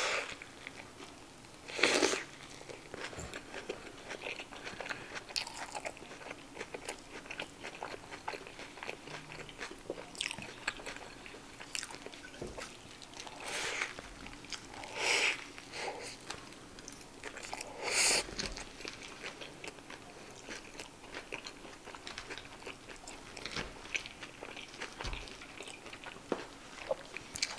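Close-miked eating of an In-N-Out cheeseburger: a run of bites and steady chewing, with about half a dozen louder bites spread through.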